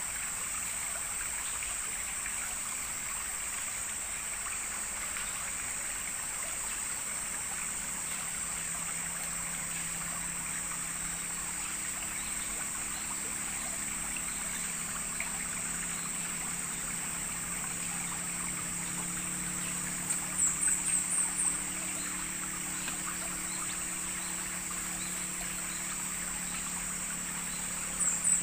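River water flowing and trickling steadily, with a steady high whine above it. About two-thirds of the way in, and again at the very end, a quick run of five or six high chirps stands out louder than the rest.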